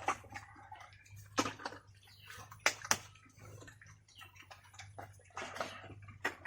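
Pigs eating wet feed from a trough: irregular wet smacking and slurping, with a low steady hum underneath.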